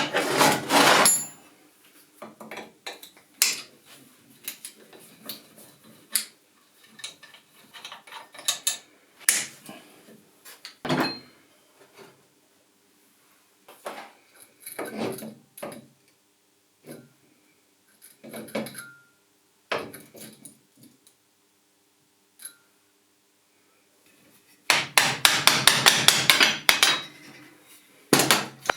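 Metal parts and hand tools clanking and knocking in irregular strikes, with a fast run of hammer-like blows near the end and a faint steady hum underneath in the middle part.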